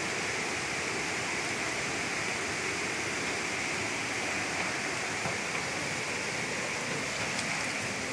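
Floodwater rushing in a steady, unbroken roar.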